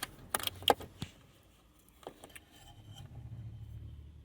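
A few light clicks and clinks in the first two seconds, small screws and the plastic dash panel being handled, then a faint low hum from about halfway through.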